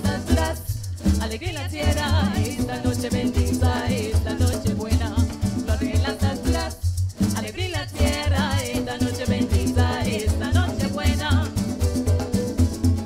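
Live parang music: voices singing over strummed acoustic guitar and cuatro, with maracas shaking steadily on the beat and a pulsing bass. The singing breaks off briefly twice.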